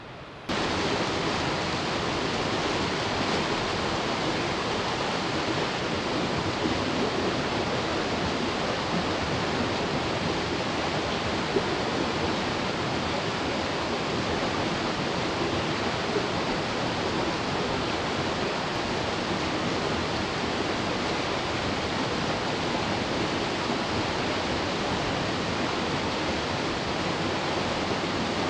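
Creek water rushing over a small rocky cascade: a loud, steady hiss of white water that starts abruptly about half a second in.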